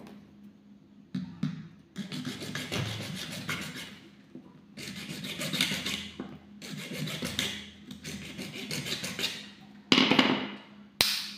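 Small hacksaw sawing through a clear plastic pen barrel, a rasping scrape in several bouts of quick back-and-forth strokes. A brief louder rasp and a sharp click come near the end.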